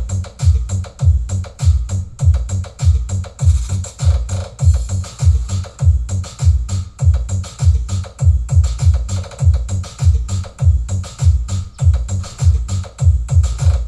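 Electronic dance music with a heavy, steady bass-drum beat played loud through a sound system, as a sound check.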